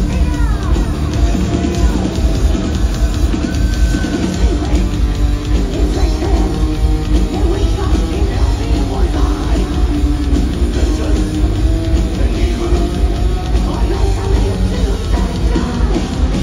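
Heavy metal band playing live: distorted electric guitars, bass and drum kit, loud and continuous, heard from within the crowd.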